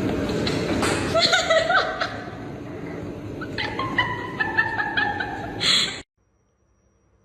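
People laughing, mixed with a pet animal's voice; the sound cuts off abruptly about six seconds in.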